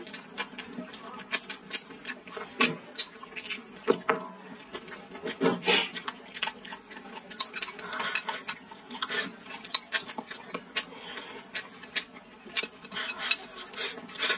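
Chopsticks clicking and scraping against a bowl as rice and stewed food are shovelled into the mouth, with close-up chewing and lip smacking: many short, irregular clicks.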